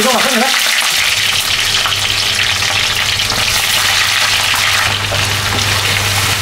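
Sliced onions sizzling loudly and steadily in hot oil in a kadai, stirred with a metal spoon near the end.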